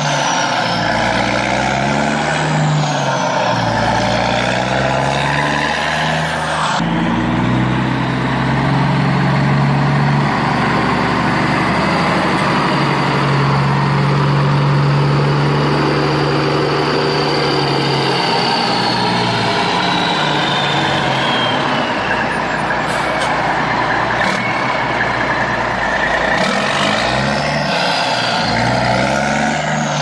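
Heavy-vehicle engine sound, running with its pitch slowly rising and falling, with a sudden change in the sound about seven seconds in.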